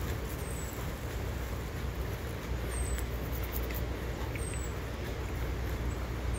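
Steady low rumble on a phone microphone during a walk on a dirt trail, with a faint, very high, short falling note repeating about every two seconds.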